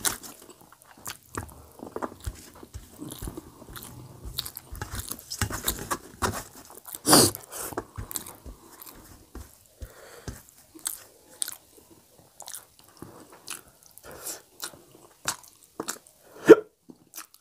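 Close-up eating sounds of a man eating rice and potato curry by hand: repeated wet chewing and lip smacks, with fingers scraping a steel plate. There is a louder smack about seven seconds in and a sharp one near the end as he sucks his fingers.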